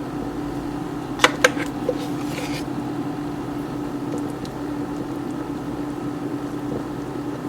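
Steady mechanical hum with one constant low tone, with a few light clicks about a second in and a brief hiss shortly after.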